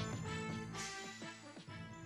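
Short channel-logo music jingle, fading out.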